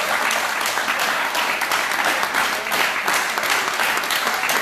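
A small crowd clapping steadily, many hands at once.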